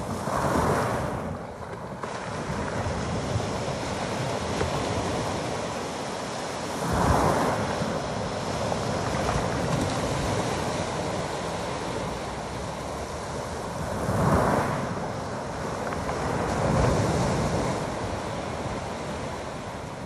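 Small sea waves breaking on a pebble beach, with a continuous wash of water over the shingle. Four louder surges rise and fall as waves come in.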